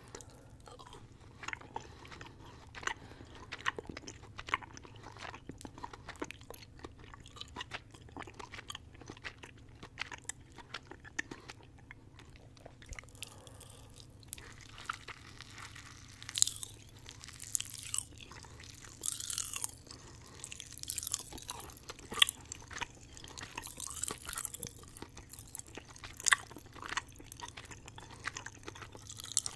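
Close-miked chewing of watermelon candy and green apple Pop Rocks: wet mouth clicks at first, then from about halfway through, dense bursts of high crackling.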